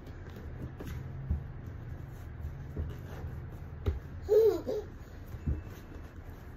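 A toddler's short, wavering laugh about four seconds in, over a faint low rumble and a few soft knocks.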